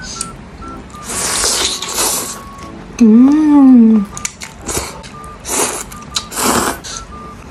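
Instant noodles slurped off chopsticks several times, and a loud hummed "mmm" about three seconds in that rises then falls in pitch. Light background music with short plucked notes plays underneath.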